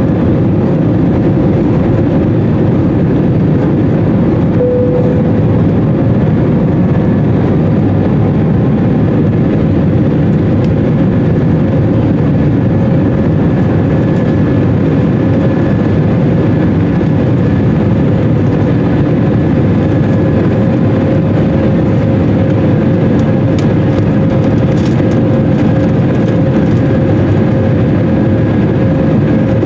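Airbus A320 jet engines and airflow heard inside the cabin over the wing during the climb after takeoff: a loud, steady noise with a thin steady tone running through it.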